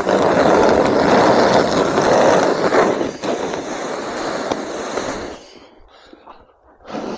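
Snow shovel blade scraping along the snowy, icy walkway in one long push, stopping about five seconds in, then a brief second scrape near the end.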